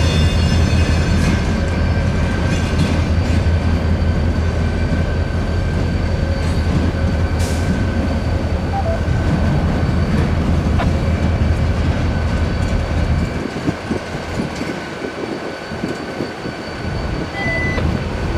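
Six-axle diesel-electric locomotive running as it slowly pulls passenger cars around a tight curve, with a steady high squeal from the wheel flanges. The engine's low rumble drops away about thirteen seconds in and picks up again near the end.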